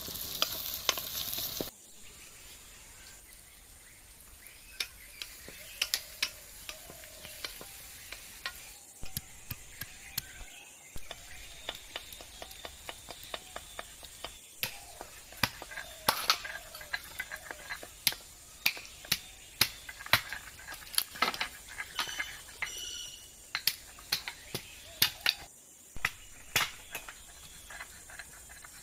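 Food sizzling in a wok as it is stirred with a spatula, cutting off about two seconds in. Then come irregular sharp knocks and clicks from the cooking work, one or two a second.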